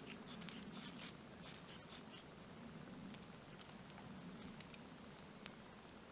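A knife scraping a fire steel over a tinder bundle to throw sparks and light a fire: a scattered series of short, faint scrapes and clicks, the sharpest a little after five seconds in.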